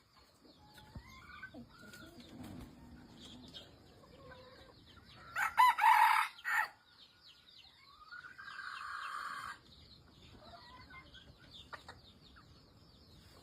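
Red junglefowl rooster crowing once, loudly, about halfway through: a call lasting about a second. A second, flatter call follows a few seconds later, and there are weaker calls scattered around them over a faint, steady, high-pitched background.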